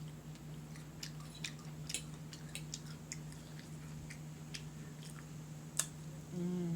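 Close-up chewing and wet mouth clicks of someone eating an omelette, irregular sharp clicks over a steady low hum.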